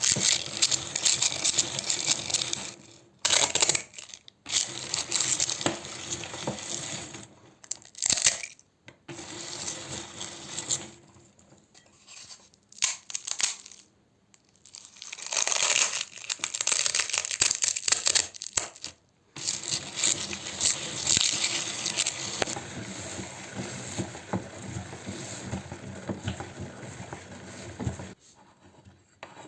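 Meat grinder crunching and crushing an ice cream cone: a crackling, brittle crunch in bursts separated by short pauses, with the loudest stretches near the start and in the middle.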